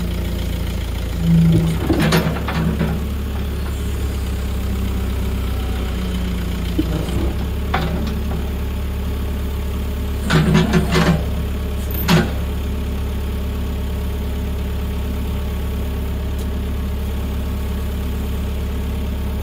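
Backhoe diesel engine running steadily while it pulls a chain on the dozer's track to squeeze grease out of the track tensioner and slacken the track. Short clusters of clanks stand out above it, around two seconds in and again around ten to twelve seconds in.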